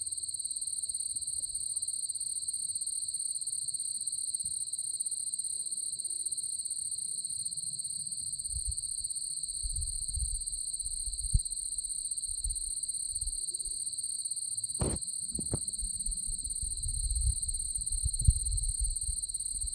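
Cicada droning in one steady, unbroken high buzz, with low rumbles of wind or handling on the microphone and a single sharp click about 15 seconds in.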